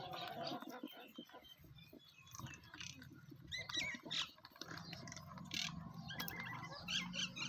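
Goats and rabbits eating potatoes: a run of quick crunching and rustling clicks, with a few short high chirps about four seconds in and again near the end.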